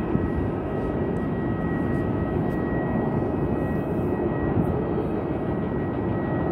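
Boeing 757-200's two Rolls-Royce RB211-535E4 turbofans at takeoff thrust, heard as a steady jet engine rumble with a thin high whine running through it.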